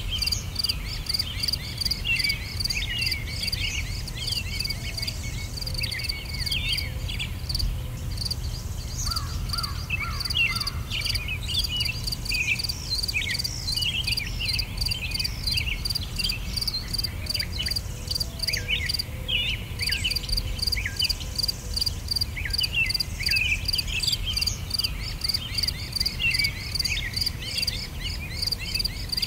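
Nature ambience of crickets chirping in a steady, evenly repeated pulse, with birds calling in many short chirps and a low rumble beneath. The cricket pulse drops out briefly twice.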